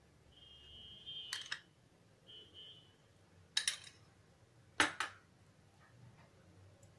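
Spoon scraping ghee out of a small glass bowl, with a thin squeak twice in the first few seconds, then a few sharp clicks and taps of utensils against the stainless steel kadhai.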